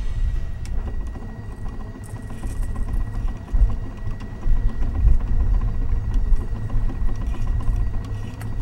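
Wind buffeting the microphone on an open boat: a low, gusty rumble that rises and falls, with a faint steady high whine under it.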